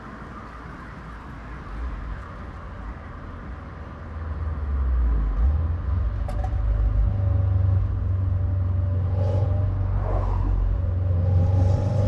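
Subaru WRX STI's EJ257 turbocharged flat-four engine rumbling deeply. It gets much louder about four seconds in and then runs on steadily.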